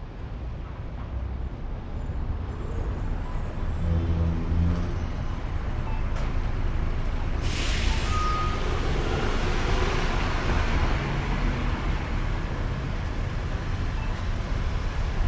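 Street traffic: vehicle engines running with a steady rumble and road noise, and a short burst of hiss about halfway through.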